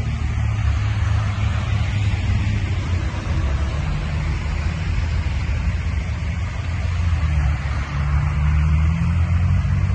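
A motor vehicle's engine running under a steady rushing noise, its note rising slightly in the second half.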